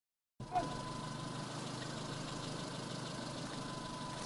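Steady hum of an idling engine with a faint constant high whine, starting abruptly a moment in after silence.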